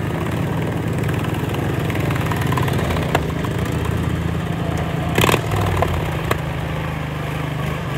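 Riding lawn tractor engines running steadily at a low idle, with a sharp knock about three seconds in and a short, louder burst a little after five seconds.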